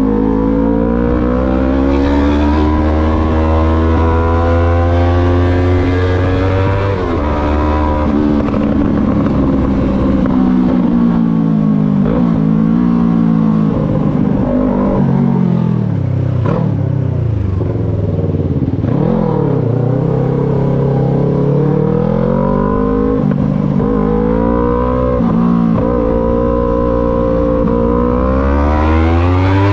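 Yamaha MT-03 motorcycle engine on the move: the revs climb to a gear change about seven seconds in, drop to low revs around the middle, then build again and rise near the end.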